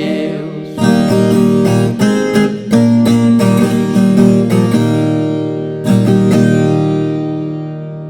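Viola caipira playing a moda de viola instrumental break: picked notes and strummed chords, then a last chord that rings out and slowly fades.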